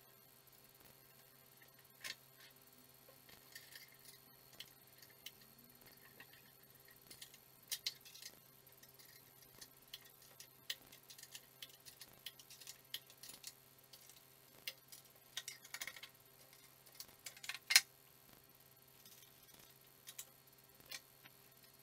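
Scattered small metallic clicks and clinks of bolts and nuts being handled and threaded by hand into a steel wheel bracket on a plywood board, over a faint steady hum. The loudest click comes about three-quarters of the way through.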